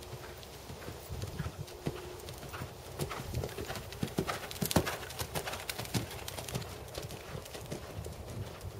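Hoofbeats of a black Percheron/Thoroughbred gelding moving under saddle on a dirt arena, a run of dull thuds. They grow louder about three seconds in as the horse passes close by, then fade as it moves away.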